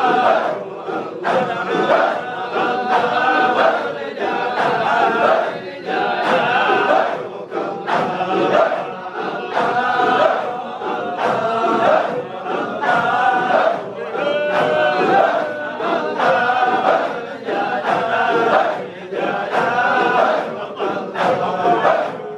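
A crowd of men chanting a Sufi dhikr together, the same short sung phrase repeated over and over, with a sharp beat about once a second.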